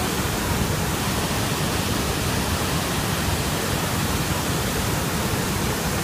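Waterfall pouring over a ledge and plunging onto rocks into white water: a steady, even rush of falling water.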